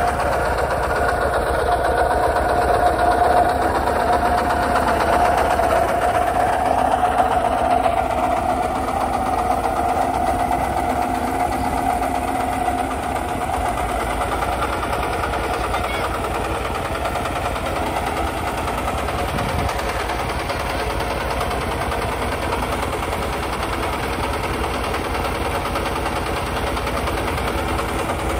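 Kubota RT140 walking tractor's single-cylinder diesel engine running steadily while the tractor pulls a plough through dry soil. It is a little louder over the first several seconds and eases slightly further on.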